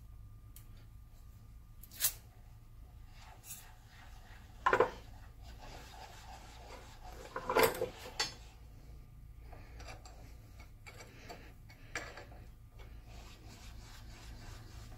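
Sheldon lathe cross slide cranked by hand: metal sliding and rubbing on the ways and lead screw, with a handful of sharp metallic clicks and knocks, the loudest about five and eight seconds in. The worn cross-slide nut has been rebuilt with two-part epoxy.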